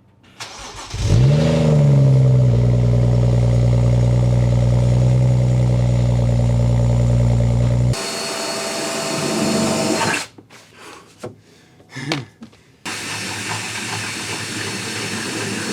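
BMW 135i's N55 turbocharged inline-six starting, heard from a mic by the exhaust. It flares up in pitch briefly on start and settles into a steady idle. About halfway through it cuts off abruptly, and a hissing, whirring mechanical noise with several short breaks follows.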